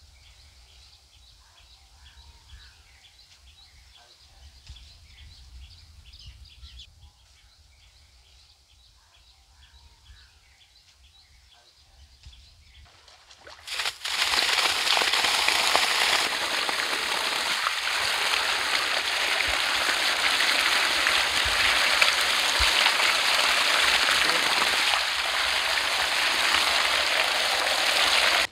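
Faint outdoor quiet with light chirping, then about halfway through a loud, steady rush of water gushing from a large pipe outlet and splashing onto grass and onto bunches of green bananas being washed in the stream.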